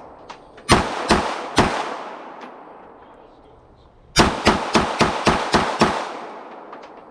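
Gunshots with a long echoing tail after each: three shots about half a second apart, then after a pause a quick string of about seven shots at roughly three to four a second.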